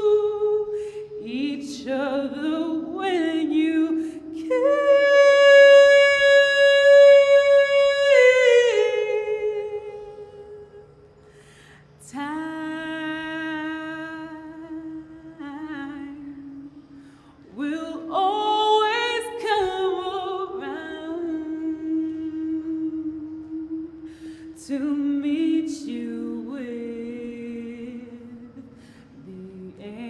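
A woman singing unaccompanied, slow and half-hummed, in long held notes that slide up into pitch. The voice drops away briefly about ten seconds in, then returns.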